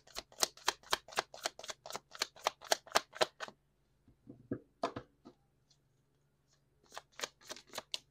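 A small deck of cards being shuffled in the hands: quick, even card slaps, about four a second, for the first three and a half seconds. A few scattered knocks of the cards being handled follow, then a second short run of shuffling slaps near the end.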